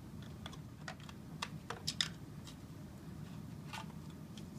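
Scattered light clicks and taps of parts knocking together as a Yonanas machine's motor and gearbox assembly is worked loose and lifted off its front plate by hand.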